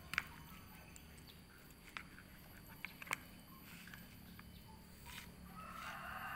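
An animal feeding from a plastic bowl of hand-torn raw meat: a few sharp clicks and knocks, with a stretch of rustling near the end.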